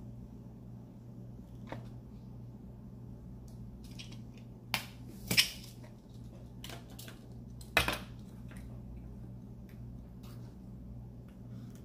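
A few sharp clicks and light knocks from handling food and small kitchen items on a plastic cutting board, the loudest two about five and eight seconds in. Under them runs a steady low electrical hum.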